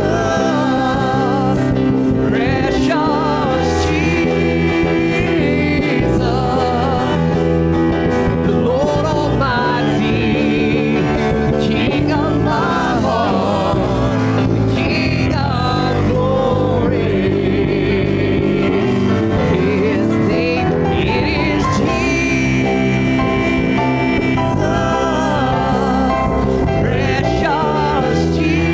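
Live gospel praise-and-worship band playing a song, with sung vocals over the instruments.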